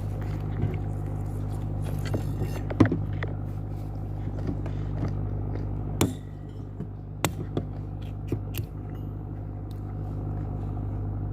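Steady low hum with scattered sharp clicks and knocks from handling food and drink while eating, and a brief crackle a little after two seconds.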